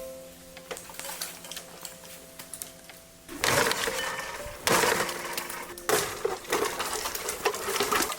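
Soft background music, then, about three seconds in, loud stretches of dense crackling and snapping of dry firewood.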